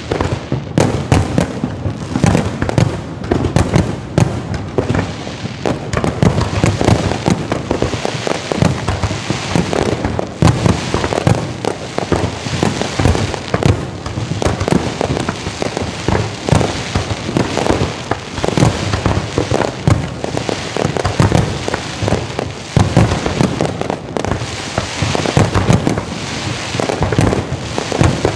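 Fireworks or firecrackers going off in a long, dense run of rapid bangs and pops, one on top of the next without a break.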